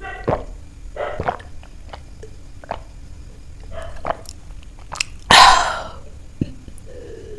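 Drinking a cold drink from a glass jar: sips, gulps and wet mouth and throat clicks. About five seconds in comes a loud breathy rush of sound, about half a second long.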